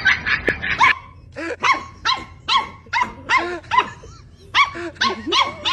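A puppy barking at a play-partner in a steady string of short, high yaps, about two to three a second. A fast clatter of short sounds comes first, in the opening second.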